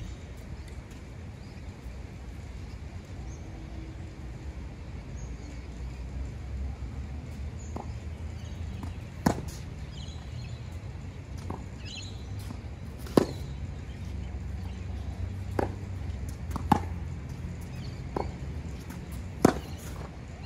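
Tennis balls struck by racquets in a baseline rally: four loud, sharp hits about three to four seconds apart, starting about nine seconds in, with fainter pops from the far end of the court between them. A steady low rumble runs underneath.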